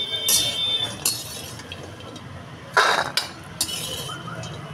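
Metal spatula stirring walnuts as they roast in a metal kadhai: about four short scraping, clinking strokes of metal on metal, the loudest a little before three seconds in, with a brief ring from the pan.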